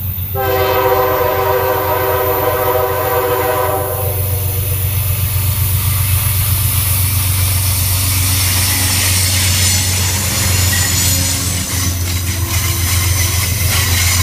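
Amtrak GE P32-8WH locomotive sounding its hybrid K5LA air horn in one long chord from about half a second in to about 4 s, over the steady low running of its GE 7FDL-12 diesel prime mover. After the horn the locomotive passes close by and the rolling noise of the train's wheels on the rails grows louder.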